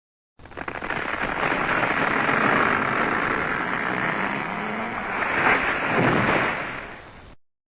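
Tree falling: a dense crackling, rushing noise of breaking wood and branches that starts sharply and holds, with heavier hits about five and a half and six seconds in, then fades and stops abruptly.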